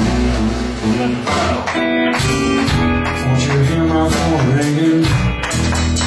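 Live blues band playing an instrumental passage: electric guitar over bass and drums, with bent, held notes.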